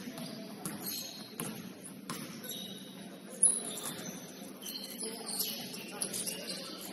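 Basketball court sounds: short, high sneaker squeaks on the gym floor at scattered moments, with a few knocks and one sharp thud about three and a half seconds in, over a faint murmur of players.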